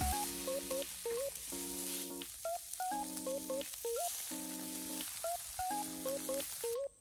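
Food sizzling as it fries, a steady hiss, under background music with a repeating melody of held notes; the sizzling cuts off abruptly near the end, leaving the music.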